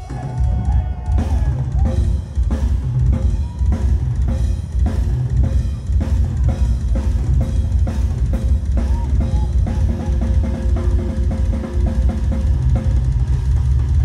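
Drum kit solo played live on stage: dense, fast bass drum under a run of sharp snare and tom hits.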